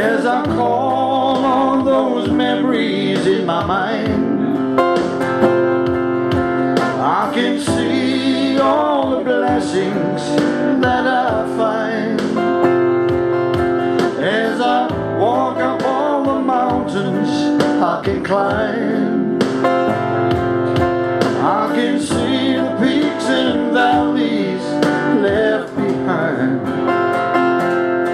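Live solo country-style song: an acoustic guitar strummed and picked, with a man singing into a microphone.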